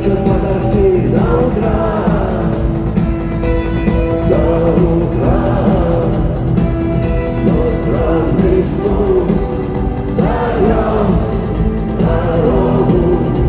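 Rock band playing live in an arena, with a sung melody over guitars, bass and drums.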